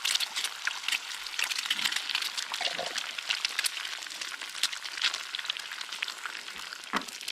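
Eggs frying with ham and tomatoes in a pan on a portable camp stove: a steady sizzle with many small crackling spatters, and a soft knock or two.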